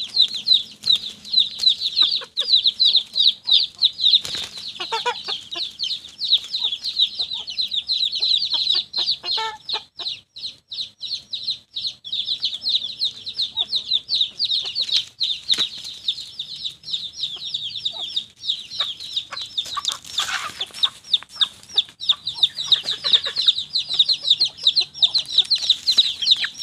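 Chicks peeping nonstop, a fast, dense stream of high cheeps, with a few lower clucks from hens.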